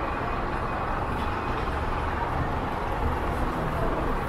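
Steady city street traffic noise: a low rumble of vehicle engines under an even hiss.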